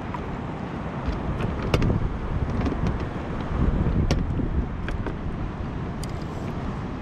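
Water rushing and sloshing around a fishing kayak's hull as it moves through churned, foamy water, with wind on the microphone. Sharp clicks and ticks come every half-second to second through the steady rush.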